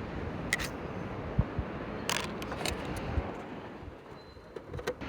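Wind rumbling on the microphone, with a few light clicks and taps scattered through it.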